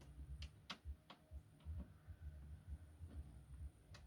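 A few faint, uneven clicks and taps as a screw joining two camping-box modules is driven in by hand.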